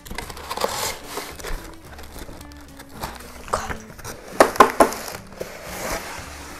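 Cardboard box being opened and its contents handled and pulled out, with three sharp knocks about four and a half seconds in, over background music.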